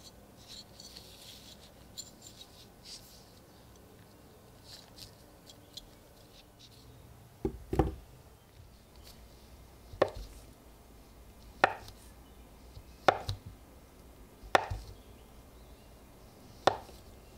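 A large knife slicing thin flakes off a bar of soap, each stroke ending in a knock of the blade on the wooden board: five strokes about a second and a half apart in the second half. Before that, faint clicks of silver coins handled in gloved fingers, and a thud about halfway through as the soap bar is set down on the board.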